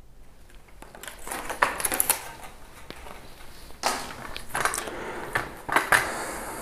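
Plastic-and-metal Kodak T210 tripod being handled: irregular scraping, rubbing and clicking as its pan head and fittings are worked by hand, starting about a second in, pausing briefly, then several sharper clicks and scrapes in the second half.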